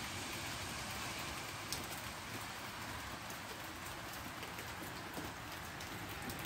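Steady rain falling, with a few faint drips of water.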